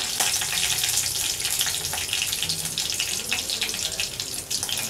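Curry leaves and whole spices (fennel seeds, cinnamon, clove) sizzling and spluttering in hot oil in a kadai, a steady dense crackle: the tempering stage of the dish.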